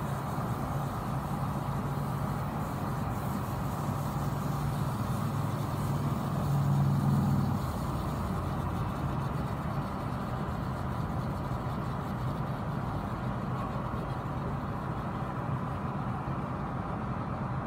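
Car engine running, heard from inside the cabin as the car rolls slowly forward, with a brief rise in the engine note about six to seven seconds in that drops back suddenly.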